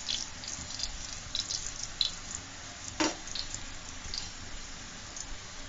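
Pieces of flour-dough pitha deep-frying in hot oil in a steel pan: a steady sizzle with scattered crackling pops, and a single sharp knock about three seconds in.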